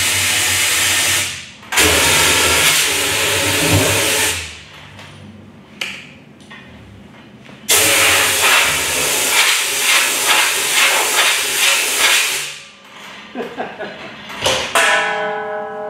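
Diesel-fuelled twin Viper valveless pulsejet engine running loud at full power, dipping briefly, then dropping away for about three seconds and coming back before it cuts out about twelve seconds in. A few clanks follow, and background music starts near the end.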